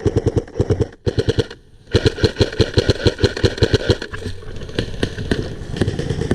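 Electric airsoft M4 carbine replica with electric recoil firing rapid full-auto bursts: a burst ending about a second in, a short burst, a brief pause, then a long burst of about two seconds. Fainter scattered shots follow.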